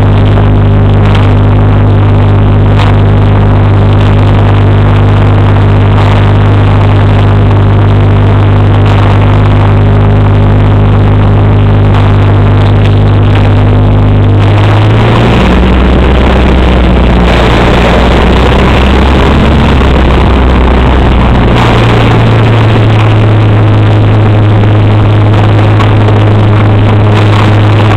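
Single-engine propeller plane's piston engine and propeller running loud in the cabin as it rolls along a grass strip after landing. The engine note drops about halfway through, then picks back up to its earlier pitch some seven seconds later.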